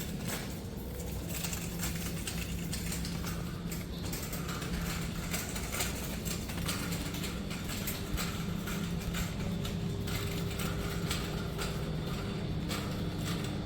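Busy store ambience: a steady low hum with many small clicks and rattles throughout.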